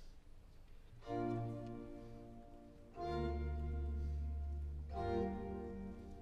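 Baroque string ensemble playing the slow instrumental opening of a 1694 oratorio aria: sustained, bass-heavy chords, a new one about every two seconds, starting about a second in.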